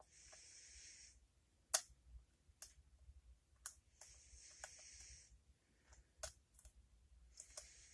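Lock pick and tension wrench working the pins of a small Abus padlock: scattered sharp, light metallic clicks, the loudest about two seconds in. Three short stretches of soft hiss sit between them.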